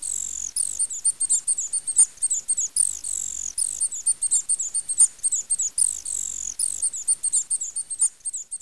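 High-pitched night-time chirping of small creatures, repeating steadily several times a second, some chirps sliding downward; it fades out near the end.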